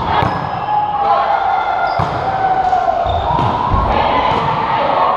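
Indoor volleyball rally: a volleyball is struck sharply several times by players' hands and forearms, while the players call out to each other.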